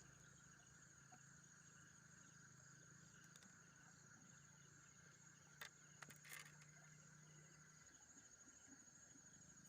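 Faint, steady chorus of night insects, with a few soft clicks a little past halfway.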